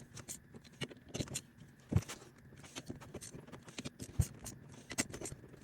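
Hand ratchet clicking in short, irregular spurts, with metal taps and knocks, while tightening the bolts on a small engine's side cover.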